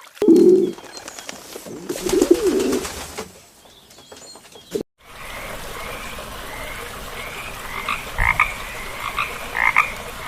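Animal calls: two low calls in the first few seconds, then, after an abrupt cut, a run of short, higher calls repeating about once a second.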